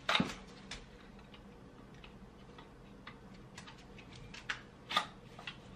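Scattered clicks and knocks of hard plastic as a black plastic stand leg is worked onto an artificial Christmas tree's trunk and won't go in. There is a sharp knock at the start and two sharper clicks near the end.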